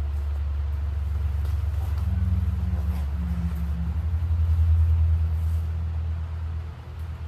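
An engine running with a low, steady rumble that swells louder a little past the middle and then drops off near the end.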